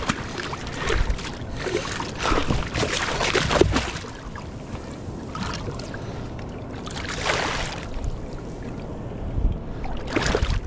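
Water splashing and sloshing around a fishing kayak, with irregular knocks and rustles of handling.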